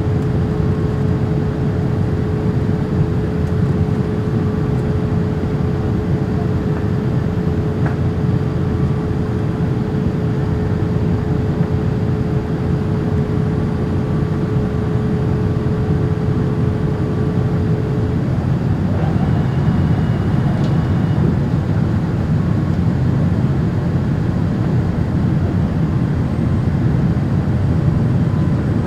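Steady in-flight cabin noise inside a Boeing 787-8 Dreamliner: a constant rush of airflow and General Electric engine noise. A thin steady hum runs through it and stops about eighteen seconds in.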